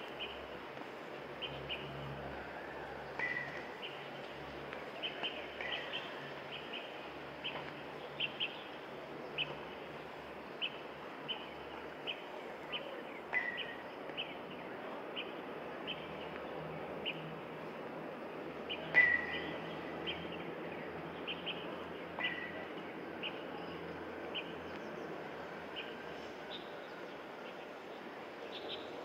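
Birds chirping: short high calls repeated irregularly about once a second over a steady outdoor hiss, with one much louder call about two-thirds of the way through.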